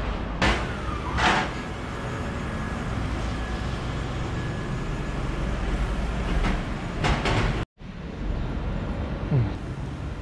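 Outdoor street noise: a steady low rumble with a few short bumps. It drops out for an instant about three-quarters of the way through.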